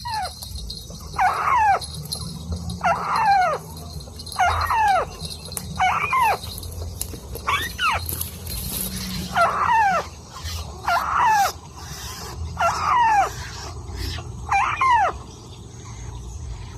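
A bird calling over and over: about ten loud calls, each sliding down in pitch, roughly one every second and a half.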